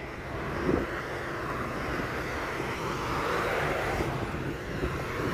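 A vehicle going by: a steady rushing noise that builds over the first second and then holds.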